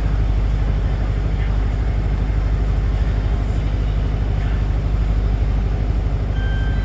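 Inside a moving city bus: the steady low drone of the diesel engine with road and cabin noise. A short electronic beep sounds near the end.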